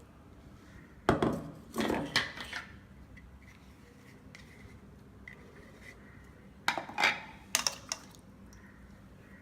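A spoon knocks and scrapes against a bowl while ground spice paste is spooned in, in two short bursts of clinks a few seconds apart.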